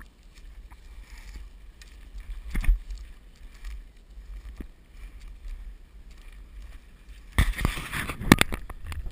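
Footsteps swishing and crunching through tall dry grass, with a low wind rumble on the microphone. About seven seconds in, a louder burst of close rustling and snapping comes as stems and brush rub against the head-mounted camera.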